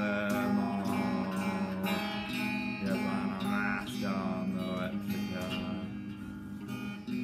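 Electric guitar strummed in a steady rhythm.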